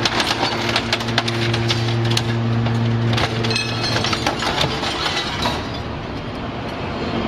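Hydraulic scrap-metal baler shear at work: a steady machine hum under dense cracking and clattering of scrap metal. The hum weakens about three seconds in while the clatter goes on.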